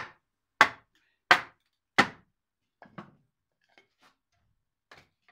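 Wooden mallet driving splitting wedges into a log to split it into shingle blanks: four sharp strikes about two-thirds of a second apart, then a few faint knocks.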